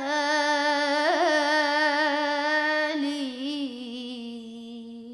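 A munshid's solo male voice holds the long closing note of an ibtihal, an Islamic devotional chant, with ornamented wavering turns about a second in and again about three seconds in. The note then fades slowly away.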